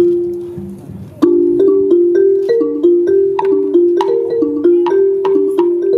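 Wooden xylophone struck with mallets. A single note rings and fades, then, about a second in, a steady run of ringing notes begins, three or four a second.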